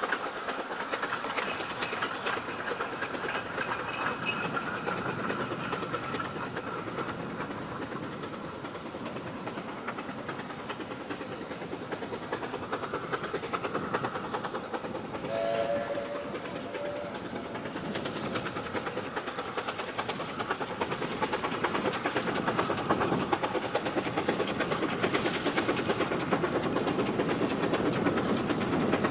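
C2-class narrow-gauge steam locomotive running with its train of small wagons, a continuous working rumble and rattle on the rails. A brief two-note whistle sounds about halfway through, and the train grows louder over the last several seconds.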